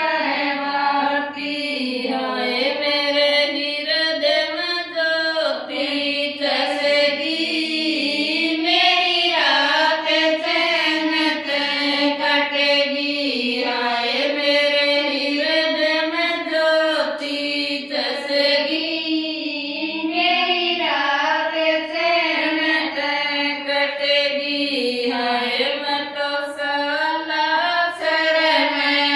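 A group of women singing a Rajasthani devotional bhajan to Balaji (a ratijaga song) together.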